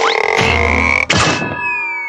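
Cartoon music and sound effects: a quick upward swoop, a low thud about half a second in, then a sharp hit followed by a long whistle that slides slowly downward.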